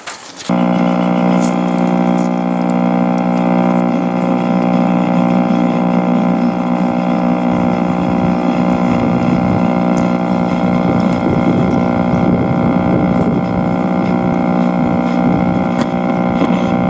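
1940 Philco 40-155 tube radio's speaker giving a loud, steady buzz made of many layered tones. It cuts in suddenly just after the start, and a rougher hiss joins underneath about halfway through.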